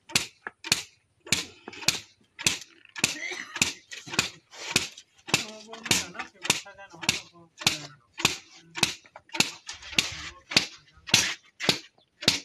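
Sticks beating a pile of loose pink fibre on a plastic sheet: sharp, even slaps about two a second.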